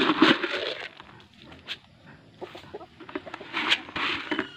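A flock of chickens feeding on the ground, with low clucking and scratching near the start and again near the end, and scattered small pecking clicks in the quieter middle.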